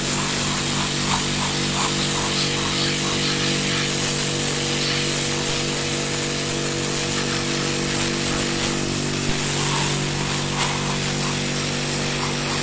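Pressure washer running steadily, its pump humming under the hiss of the high-pressure water jet blasting dark grime off clay roof tiles.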